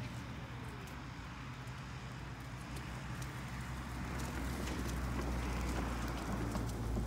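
Wheelchair rolling along a tarmac path: a steady low hum, with light ticking of grit under the wheels. A rushing noise grows louder in the second half.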